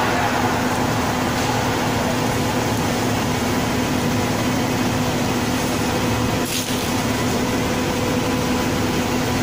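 Powder valve-bag packing machine running while filling bags, a steady machine hum with a constant low tone over even noise. A brief hiss comes about six and a half seconds in.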